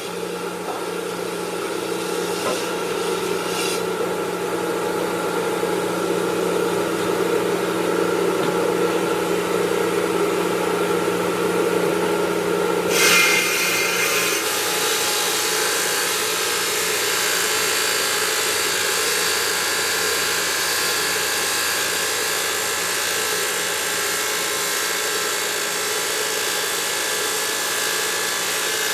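Stone-working machinery working marble: a steady grinding noise that turns abruptly into a harsher hiss about 13 seconds in.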